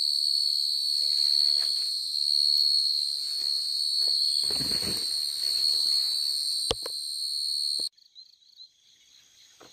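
A night insect trilling in one continuous, high-pitched note that cuts off abruptly near the end. Fainter, rhythmic chirps take over after it. There is a brief rustle of handling midway and a single sharp click shortly after.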